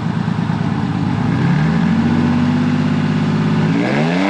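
Ford F-150's 4.2 L V6 exhaust note through a Cherry Bomb Vortex single-in, dual-out muffler with stock cats and Y-pipe. The engine is revved up about a second in and held steady. Near the end it is blipped sharply higher and falls back.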